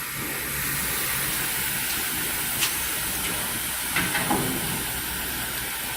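Steady hissing noise from a double-head aluminium cutting machine standing by, with a few light clicks about two and a half and four seconds in.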